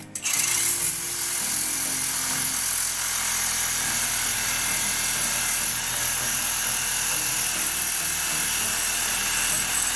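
Milwaukee Sawzall reciprocating saw running steadily, its blade cutting through metal at the rototiller's tine shaft.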